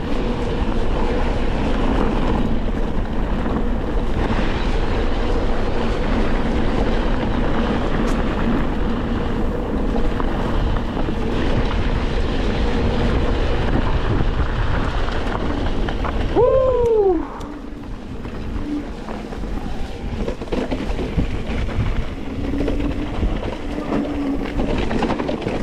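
Wind rushing over a helmet camera's microphone, with mountain-bike tyres rolling over a dirt and rocky trail during a fast descent. About two-thirds of the way in, a short tone rises and falls, and then the rushing gets quieter as the bike slows.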